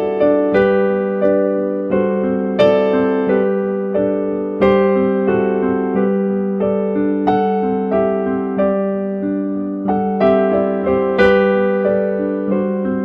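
Slow, gentle solo electric piano music: chords and melody notes struck one after another over a sustained low note, each note fading after it is struck.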